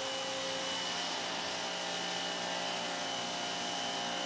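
Giraffe Tools Grandfalls G20 electric pressure washer running with a 3.0 nozzle tip: a steady hiss of the water jet spraying a car panel, with the machine's steady motor hum and whine underneath.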